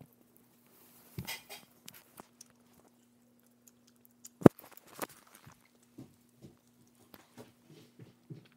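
Two cats eating wet cat food from a plate: scattered chewing and smacking clicks, with one sharp knock about four and a half seconds in and a smaller one just after.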